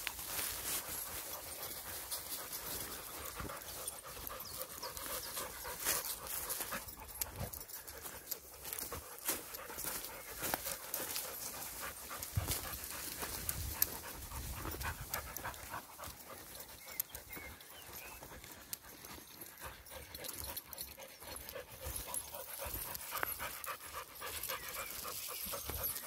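A Rottweiler panting steadily close by, with crunching steps and rustling through dry leaves and stony ground.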